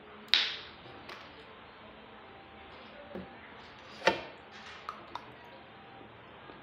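Close-up eating sounds from grapes being eaten: a few sharp clicks and knocks, the two loudest about a third of a second in and about four seconds in, with smaller ones between.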